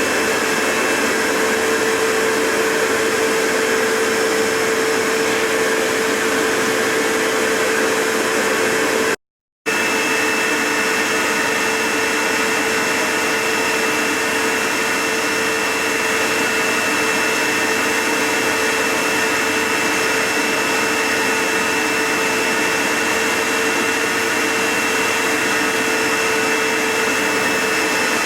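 Vax HF1400 upright carpet washer running in carpet-washing mode: a steady motor and suction noise with a constant whine. The sound drops out completely for about half a second some nine seconds in, then carries on as before.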